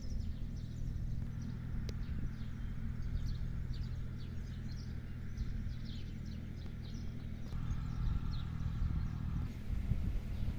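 Birds chirping in short, quick calls over a steady low rumble.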